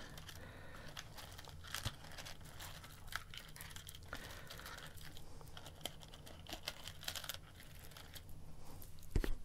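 Faint scattered clicks and rustles of hands handling jumper wires and breadboards, a little louder near the end.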